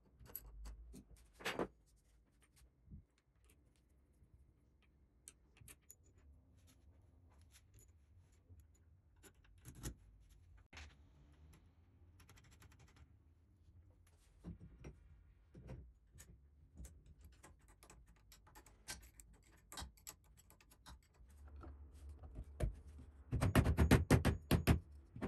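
Scattered clicks and light knocks of screws, an Allen key and metal parts being handled as a motor is fitted to its mount on brass spacers. Near the end comes a quick run of taps from a soft-faced mallet seating the mount, the loudest sound.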